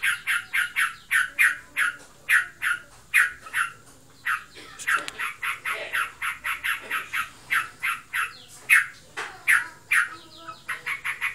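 A trocokan bulbul giving a rapid, unbroken string of short, sharp calls, about three or four a second, with two brief lulls. This is 'ngebren' chatter, which the owner cannot say is a sign of breeding excitement or of the bird being in full song.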